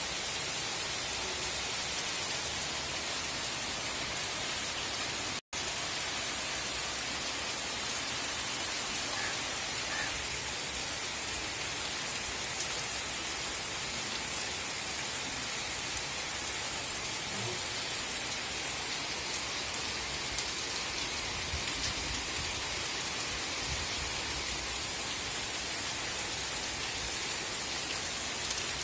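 Heavy rain pouring steadily. The sound cuts out for an instant about five seconds in.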